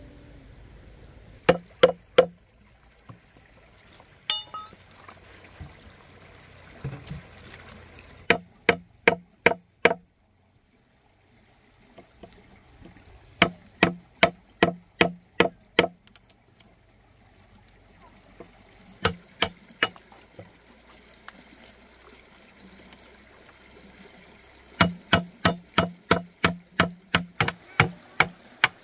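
Sharp knocks of a hand tool striking wood, in bursts of two to about ten blows at roughly three a second with pauses between. A stream of water runs faintly underneath.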